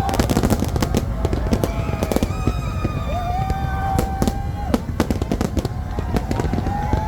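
Fireworks bursting and crackling in rapid, irregular succession over a continuous low rumble of booms. A few long held whistling tones rise and fall above them.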